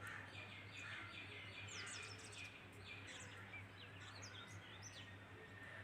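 Faint bird chirping: many short, quick falling chirps, one after another, over a steady low hum.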